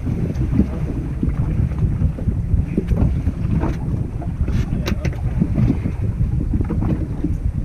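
Wind buffeting the microphone on a fishing boat: a steady low rumble with a few short knocks around the middle.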